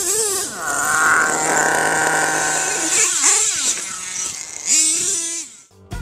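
HPI Savage X 4.6 nitro monster truck's small nitro engine revving up and down in several rising and falling bursts, over a steady hiss, then cutting off suddenly.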